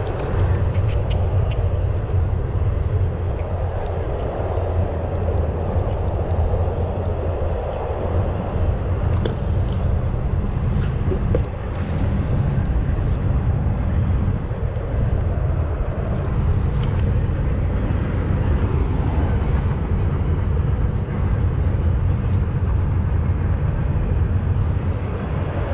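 Steady low outdoor rumble, with a few faint clicks in the middle.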